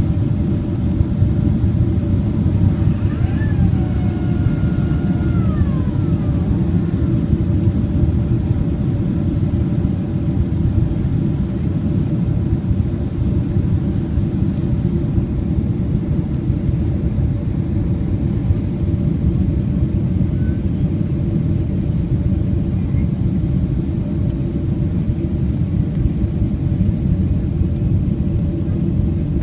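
Steady, loud low rumble inside the cabin of a Boeing 767-300 on landing approach with its flaps extended: airflow and engine noise heard from a seat over the wing. A faint whine glides down in pitch a few seconds in.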